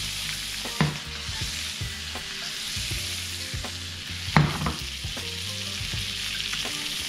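Dorado (mahi-mahi) fillets sizzling steadily in a hot pan, the heat high enough to blacken the crust. A utensil knocks sharply against the pan twice, about a second in and again about four seconds in.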